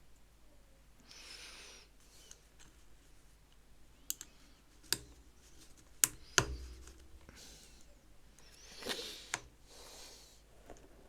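LEGO plastic pieces being handled: a handful of sharp clicks and taps as pieces snap together or are set down on a table, the loudest pair about six seconds in, with soft rustling between as pieces are picked through.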